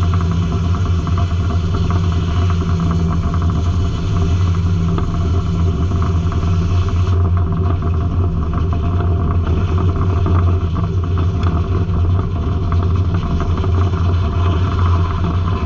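Circle sawmill running, its engine droning steadily with a deep hum; the higher hiss eases about seven seconds in.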